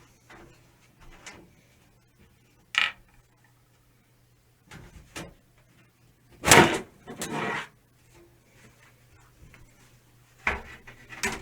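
Steel side panel of a mid-tower PC case being handled and taken off: scattered metallic clicks and knocks, with the loudest sliding clatter about six and a half seconds in.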